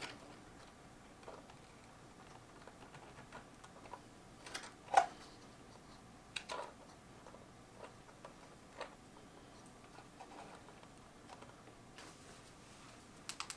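Quiet, scattered small clicks and taps of hands handling speaker wire while connecting an in-wall speaker, with a sharper tap about five seconds in.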